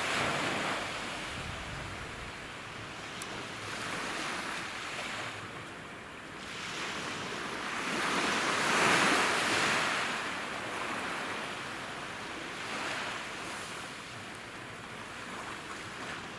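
Small sea waves breaking and washing up a sand beach, rising and falling in slow surges about every four seconds, the biggest about halfway through.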